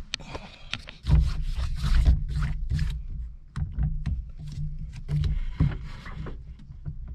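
Steering wheel on a worn quick-release hub being rocked and handled, giving irregular clunks, clicks and scraping. The clunks come from play in the quick release.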